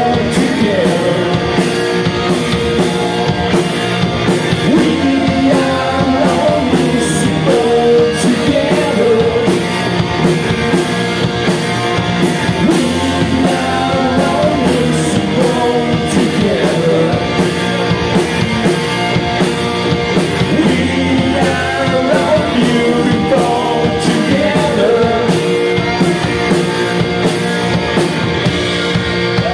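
Live rock band playing at full volume: two electric guitars, electric bass and a drum kit keeping a steady beat, with a male lead singer.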